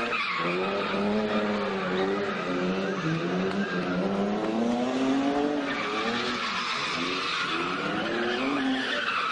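An engine running, its pitch rising and falling throughout, with a rushing hiss that grows stronger about six seconds in.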